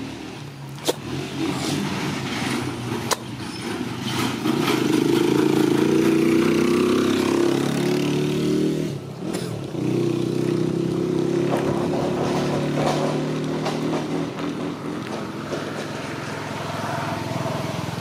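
A motorcycle engine running steadily, loudest from about four to eight seconds in, with a short dip about nine seconds in before it carries on. Two sharp clicks come in the first few seconds.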